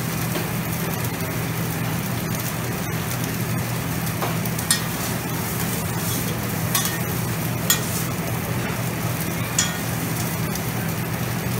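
Meat and noodles sizzling on a steel flat-top griddle, with metal spatulas clacking and scraping against the griddle a few times, sharpest about halfway through and near the end. A steady low hum runs underneath.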